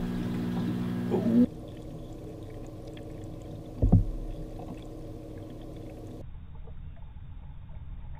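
Steady electrical hum with a brief rising squeak about a second in, then the muffled, low noise of aquarium water heard through an underwater GoPro's housing, with one loud thump about four seconds in.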